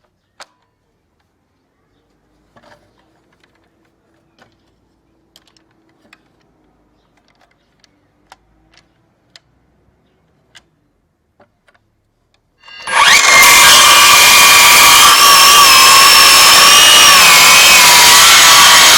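A few faint clicks and taps, then about two-thirds of the way in a Hitachi C18DBAL 18-volt cordless circular saw starts suddenly and runs loud, sawing, its high whine wavering.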